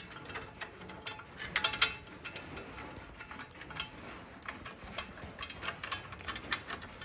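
Irregular small metal clicks and clinks of a steel plow-mount bracket and its bolts being worked by hand into a side-by-side's frame, with a quick run of louder clicks about a second and a half in.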